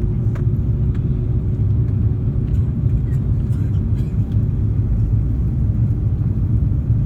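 Steady low rumble of an Airbus A330-300 airliner in flight on approach, engine and airflow noise heard from inside the cabin, with a faint steady hum that fades out about five seconds in and a few light clicks.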